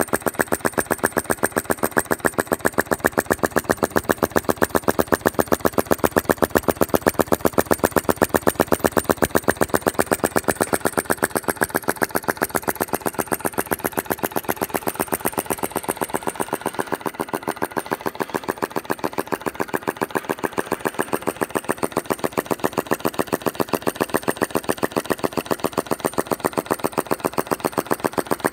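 Home-made Philip Duclos-design flame-sucker (vacuum) engine running, giving a fast, even train of sharp pops and clacks as its valve draws in the flame and snaps shut each stroke. The beat weakens a little past the middle.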